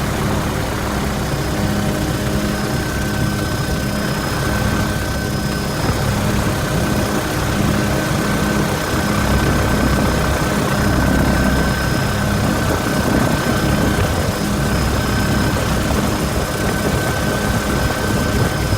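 Steady drone of an aircraft engine, with a low hum that pulses regularly and a thin, steady high whine over it.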